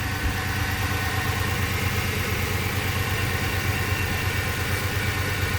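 Ford F-150's V8 engine idling steadily, running again after being jump-started from a portable jump-starter battery.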